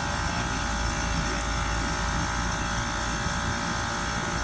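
Air-conditioning unit running steadily, with a constant machine hum made of several steady tones over a broad rushing noise.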